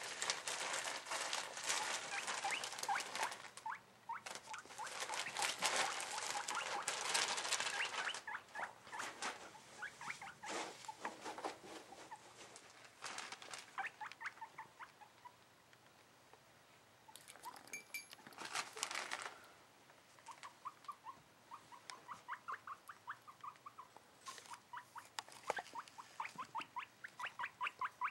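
Guinea pig calling excitedly in runs of short repeated squeaks, several a second, louder and denser toward the end. Rustling of cage bedding is heard over the first several seconds.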